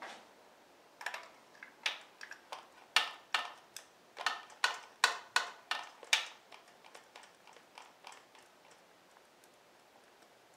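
A run of sharp, uneven clicks, about two or three a second, then a few fainter ones near the end, as a new spark plug is fitted into the motorcycle's cylinder head by hand.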